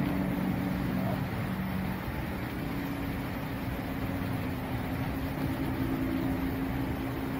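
Steady hum of vehicle engines and road traffic, with a low droning tone that shifts to a slightly higher one about two and a half seconds in.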